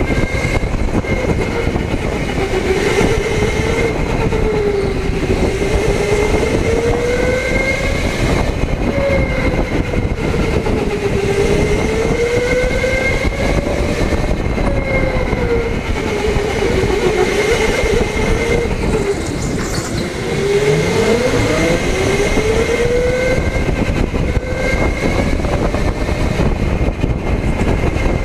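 Electric go-kart motor whining, its pitch rising and falling every few seconds as the kart speeds up and slows through the corners, with one sharp drop and climb about twenty seconds in. A steady higher whine and a rumble of tyres on the track run beneath it.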